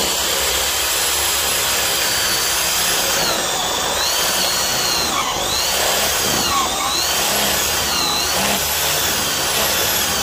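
Power drill running a spade bit into a wood block to bore a birdhouse entrance hole. The motor whine dips and recovers several times as the bit bites into the wood.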